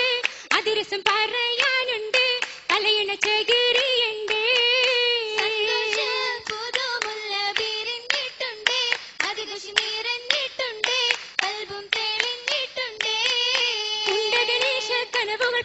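Oppana performance: female voices singing a Mappila song in a wavering melody over the group's rhythmic hand-clapping.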